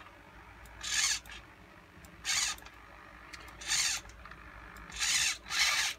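Hobby servo in a 3D-printed InMoov robot hand's wrist whirring in five short bursts, about every second and a half with the last two close together, as it turns the wrist through its printed gearing; the gearing holds without slipping.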